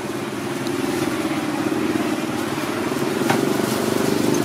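A small engine running steadily with a fast, even throb, growing louder over the few seconds.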